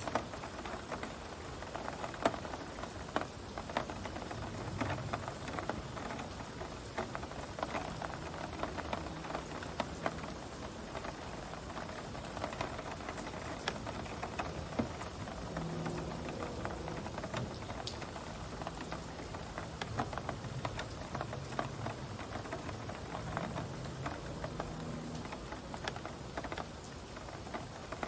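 Heavy rain pattering on surfaces: a steady hiss dotted with the sharp taps of single drops.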